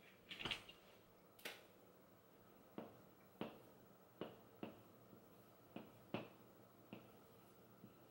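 Faint, short strokes of a dry-erase marker against a whiteboard as letters are written, about ten in all, coming half a second to a second apart. A couple of soft knocks near the start come as the board is laid down.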